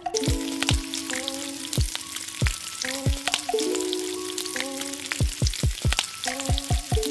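Background music with a held melody and deep kick-drum hits that fall in pitch, over a steady crackling sizzle like food frying in a pan.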